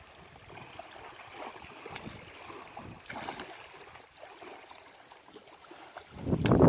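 Small lake waves lapping and gurgling at the water's edge, with a much louder close noise setting in near the end.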